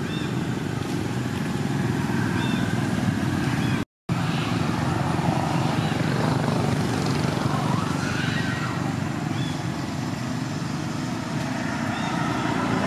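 Steady low rumbling background noise, broken by a brief dropout about four seconds in, with a few faint high chirps over it.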